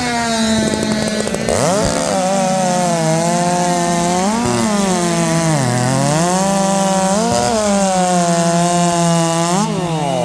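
Two-stroke chainsaws at full throttle cutting through timber in a race. The pitch dips several times as the chains load up in the wood, and near the end the engines drop off as the cut finishes.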